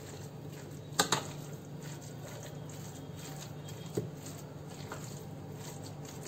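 Metal spoon mixing a mashed potato mixture in a bowl, with a sharp click of spoon against the bowl about a second in and a smaller one about four seconds in, over a low steady hum.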